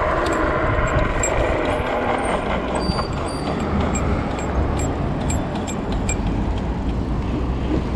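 Ride noise of a Dual Pro dual-motor electric scooter slowing down: wind and tyre rumble, with a faint motor whine that fades over the first few seconds as the speed drops. Light metallic clinks come from an aluminium keyring swinging on the scooter.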